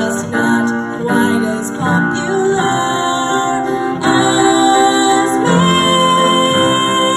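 A young female singer performing a show tune live with guitar accompaniment, holding long notes.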